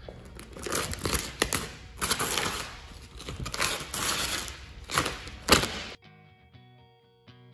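A squeegee scraping over vinyl wrap film in about six quick swipes. The scraping cuts off suddenly about six seconds in, and quiet plucked-guitar background music takes over.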